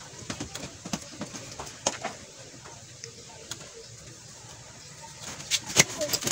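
Cloth strips rustling, with small ticks and clicks, as they are looped and pulled through a doormat on a wooden frame by hand. A little before the end comes a sharper knock as the wooden frame is moved.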